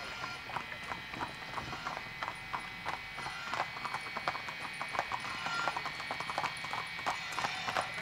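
Hooves of a team of carriage horses clip-clopping on a paved road, many overlapping hoof strikes, growing a little louder as the team approaches.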